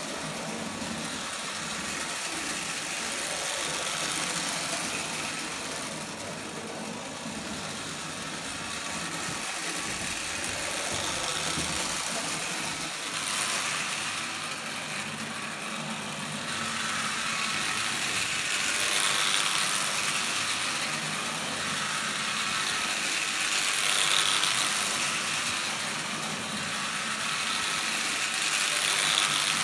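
Prewar Lionel O gauge tinplate train, a small locomotive pulling lithographed passenger cars, running steadily on three-rail track with a motor whir and wheel rattle. It grows louder three times in the second half as the train passes close.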